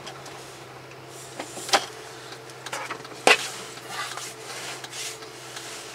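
Car running along, heard from inside the cabin as a steady low hum and road noise, with a few sharp clicks and knocks from the interior, the loudest about three seconds in.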